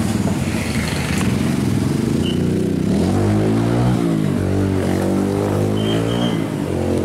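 Motorcycle engines of passing street traffic running steadily, with one passing close by a few seconds in, its pitch sliding up and back down.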